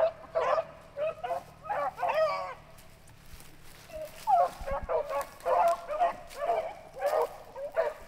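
A pack of beagles baying on a rabbit chase: short, repeated, pitched cries from more than one hound, a cluster in the first couple of seconds, a brief lull, then a quicker run of cries from about four seconds in.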